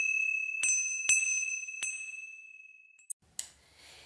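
Small high-pitched chimes, struck three times in quick succession and left ringing, fading out about three seconds in. A brief click and a short soft noise follow.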